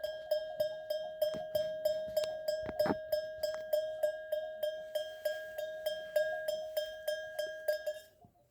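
A goat's neck bell ringing in a fast, even rhythm of about four strikes a second, with one louder knock about three seconds in. The ringing stops abruptly near the end.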